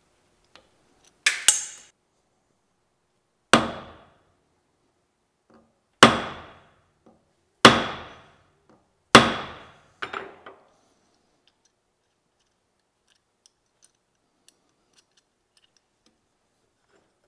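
Hammer blows on a steel pin in a saw helper handle's metal fitting, set on the anvil face of a bench vise: the pin is being peened over. About seven sharp, ringing strikes spaced one to two seconds apart, the first two in quick succession, then only a few faint taps after about ten seconds.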